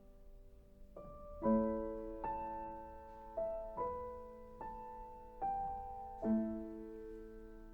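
Slow, gentle piano music: single notes and chords struck every second or so and left to ring out.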